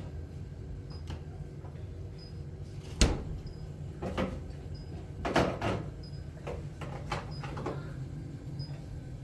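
A sharp knock about three seconds in, then a couple of seconds of clattering and a few lighter knocks, over a steady low hum.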